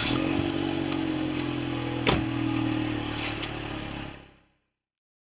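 Chevy Sonic's turbocharged 1.4-litre four-cylinder engine idling steadily just after starting, with one sharp click about two seconds in. The sound fades out about four seconds in.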